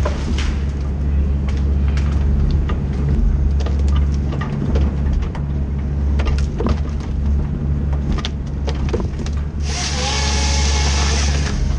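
Forestry harvester's diesel engine running steadily, heard from inside the cab, while the harvester head feeds a spruce stem and its delimbing knives snap off branches with many sharp cracks. About ten seconds in, the head's chain saw cuts through the stem for about two seconds with a loud, high-pitched buzz.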